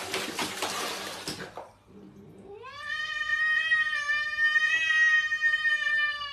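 Water sloshing in a plastic basin for about a second and a half, then a cat gives one long yowl that rises in pitch and holds steady for about four seconds.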